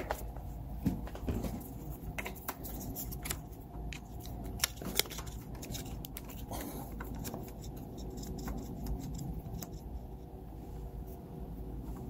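Hands working the opened plastic turn signal switch housing from a Honda Silver Wing 600's handlebar: a run of small irregular clicks and clacks of plastic and metal parts, thickest in the first seven seconds, then sparser, over a steady low hum.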